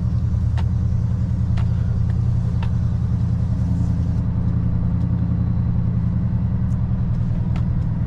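Scania log truck's diesel engine running steadily at low speed while the truck manoeuvres, a deep even drone with a few faint clicks.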